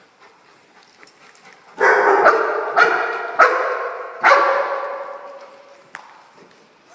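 A big dog barking while playing: four loud barks, each about a second apart, starting about two seconds in, with each one trailing off.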